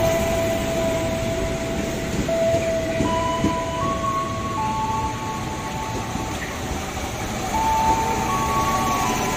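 KRL Commuter Line electric train running past alongside the platform: a steady rumble of wheels on the rails. Over it are high steady tones that step from one pitch to another every second or two.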